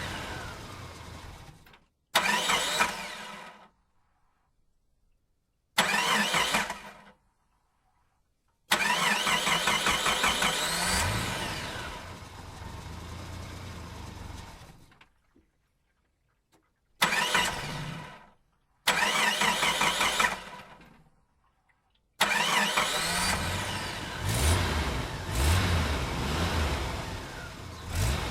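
A string of separate engine start-ups, about seven in all, each starting and cutting off abruptly with short silences between. Some are brief bursts; the longer ones catch and keep running, one with a rising rev.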